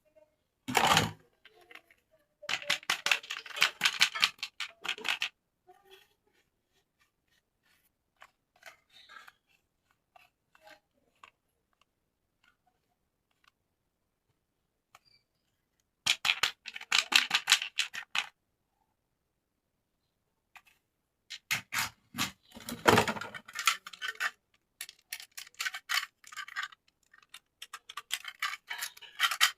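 Plastic toy parts and packaging being handled: a knock about a second in, then bursts of dense crinkling and clicking with quiet gaps between them.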